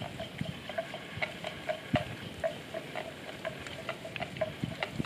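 Water buffalo grazing close by: crisp tearing and crunching bites of grass, about two or three a second.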